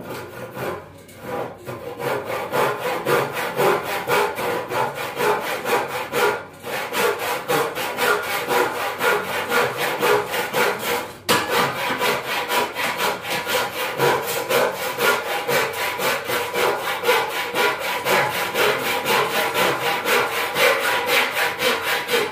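Handsaw cutting through wood in steady back-and-forth strokes, about three a second, with two brief pauses.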